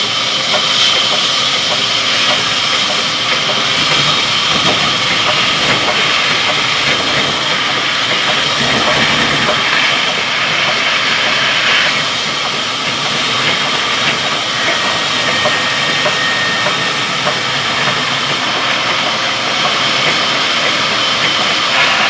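Large belt-driven sawmill band saw cutting lengthwise through a mango log: a loud, steady hiss of the blade in the wood over the running machine, with a faint constant high whine.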